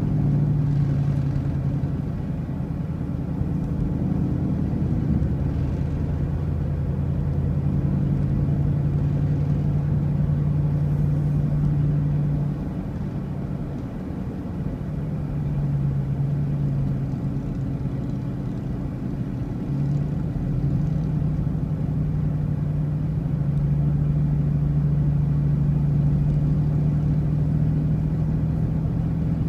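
Motor vehicle engine running at a steady cruise over low road rumble. The engine note eases off briefly near the middle and once more a few seconds later.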